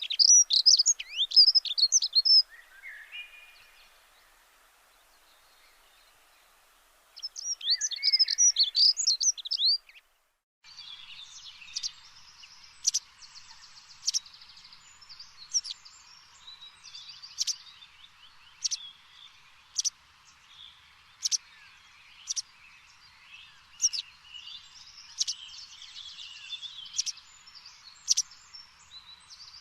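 Songbirds singing: two quick, busy phrases of high chirps in the first few seconds. About a third of the way in the sound changes abruptly to a bird giving a short sharp chirp over and over, about once every second and a quarter, over faint background chatter.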